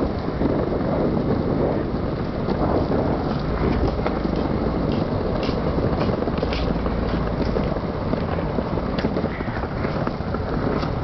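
Skateboard wheels rolling over a paved walkway, a steady rumble with small clicks now and then, mixed with wind buffeting the microphone.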